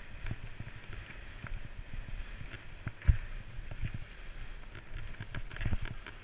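Skis hissing through deep powder snow, with low thumps and wind rumble on the helmet microphone, the loudest thump about three seconds in.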